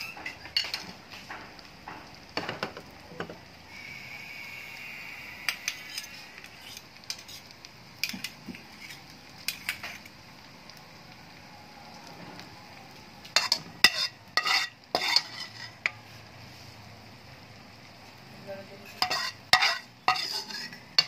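Metal spoon scraping and clinking against a sizzling plate while chopped chicken and pork cracklings are stirred, over a steady low sizzle. The clinks come in scattered strokes, with two busier bursts of stirring in the second half.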